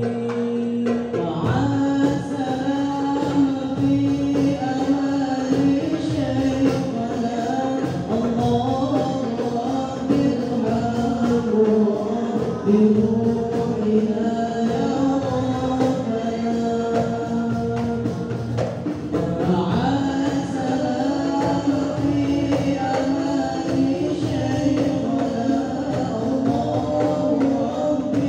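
Amplified male voices singing sholawat, an Islamic devotional song, in long held, melismatic lines. A hand-struck frame drum (rebana) beats a steady accompaniment.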